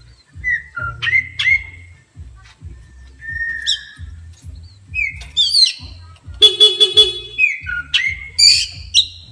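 Oriental magpie-robin (kacer) singing agitatedly: loud whistles, chirps and sliding notes, provoked by a horn. The horn sounds in about four quick buzzy pulses about six and a half seconds in.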